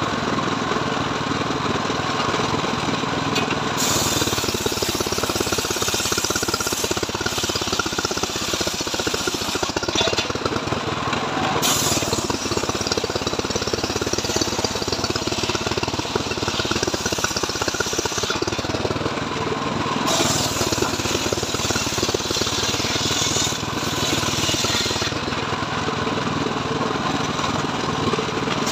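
Engine-driven homemade circular saw bench ripping a mahogany log into planks. The engine drones steadily, and the blade's high hiss of cutting comes in three long passes, with a fourth starting at the end.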